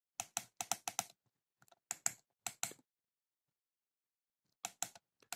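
Plastic keypad buttons of a Satlink WS-6906 handheld satellite finder clicking as the arrow and OK keys are pressed to enter letters. A quick run of clicks comes in the first second and a few more follow. After a pause of about two seconds, a few more come near the end.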